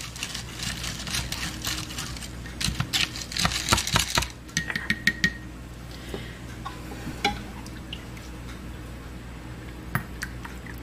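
Debubbling stick worked briskly up and down inside a glass mason jar of black beans and liquid, with quick clinks and scrapes against the glass for the first five seconds or so and a short ringing note near the end of that run, then only a few scattered taps. This is debubbling, releasing trapped air from the jar before it is lidded for canning.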